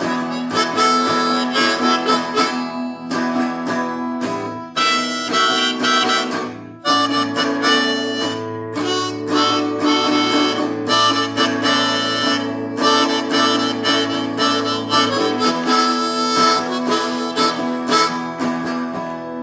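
Instrumental blues-rock break: a blues harmonica plays a lead solo over guitar accompaniment and a steady bass line.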